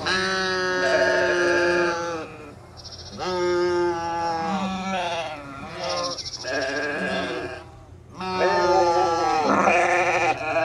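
Sheep bleating: a series of about five drawn-out bleats, each one to two seconds long.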